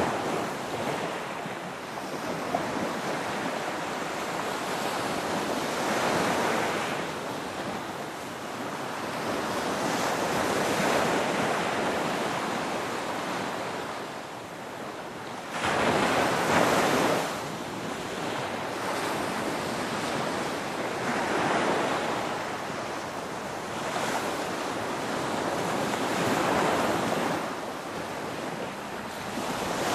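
Ocean waves breaking and washing on the shore, swelling and fading every few seconds; one wave about halfway through comes in suddenly and louder than the rest.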